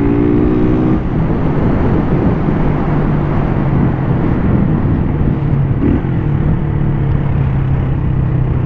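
Motorcycle engine running at a steady cruise, with wind rushing over the microphone. A higher engine note drops away about a second in, then the engine holds a steady pitch.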